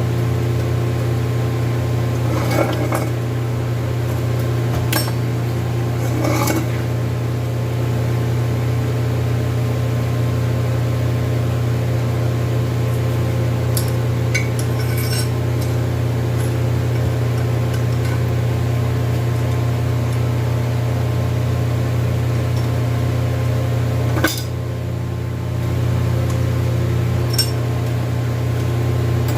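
A steady electrical machine hum, with a few light metal clinks and taps scattered through it.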